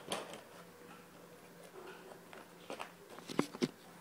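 Hands handling and pressing shut the cover over the electronics on a foam model plane: a few scattered light clicks and taps, the sharpest ones near the end.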